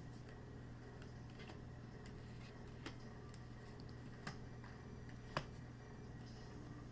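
A few faint, sharp clicks, about a second and a half apart with the loudest about five seconds in, over a steady low electrical hum in a small room.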